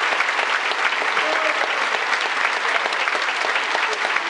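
Large audience applauding steadily, dense clapping.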